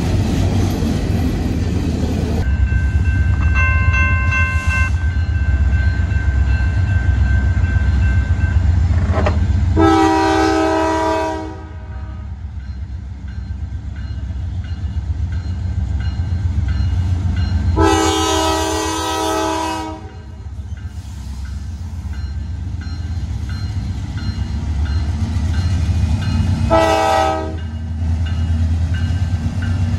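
Norfolk Southern freight train approaching, its lead GE C44-9W diesel locomotive sounding its horn in the grade-crossing pattern: two long blasts about 8 seconds apart, a short one, and a fourth starting near the end. Under the horn is the steady rumble of diesel engines and rolling rail cars, heavier for the first couple of seconds as hopper cars pass close by.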